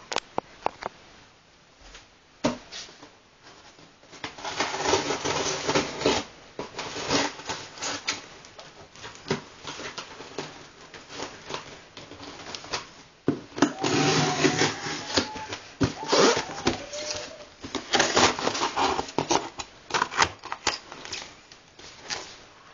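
Cardboard box being opened by hand: packing tape ripped and peeled off in several long rips, with a brief squeal from the tape, and clicks and knocks from the cardboard between them.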